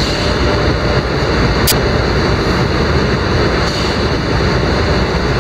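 Car wash machinery running: a PECO grill brush spinning its blue cloth strips against a car's front and side under water spray, making a loud, steady wash of noise over a low rumble. A single sharp click comes about a second and a half in.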